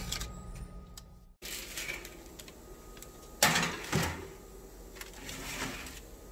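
Metal baking sheet being slid onto a wire oven rack: two loud metal knocks about half a second apart near the middle, then a few fainter rattles.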